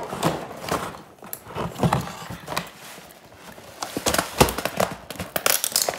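Cardboard and plastic toy packaging being handled and pulled open: irregular clicks, crackles and rustles, coming thicker and sharper in the second half.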